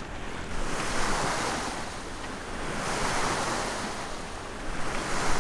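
Water rushing and splashing along a motoring sailboat's hull, the wash swelling and easing every couple of seconds, with wind buffeting the microphone.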